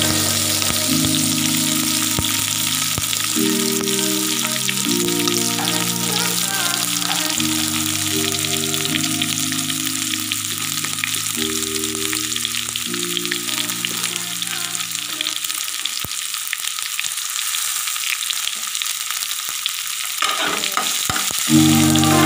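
Chopped onions and tomato frying in hot oil in a non-stick wok, a steady sizzle. Soft background music with held chords plays over it, stops about fifteen seconds in and comes back near the end.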